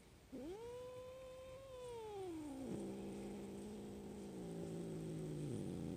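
A domestic cat's long drawn-out yowl that rises, holds, then sinks into a low steady growling moan for a few seconds, with a second rising yowl starting near the end: an irritated cat "arguing" back at its owner.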